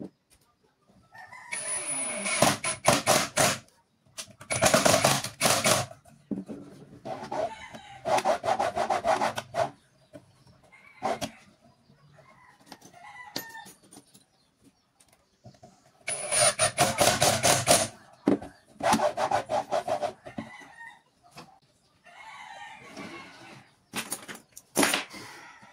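A rooster crowing again and again, about eight calls of one to two seconds each with pauses between them.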